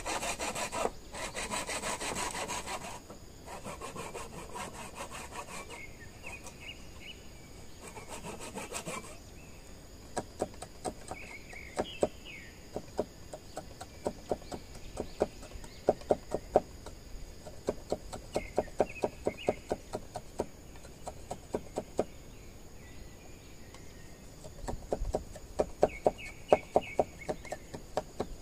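Bamboo being sawn by hand in long rasping strokes for about the first nine seconds. Then come clusters of sharp taps on the bamboo.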